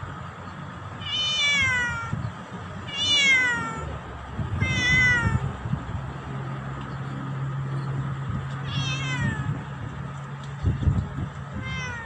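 Black cat meowing five times, each meow falling in pitch: three close together in the first five seconds, another about nine seconds in, and one more just at the end.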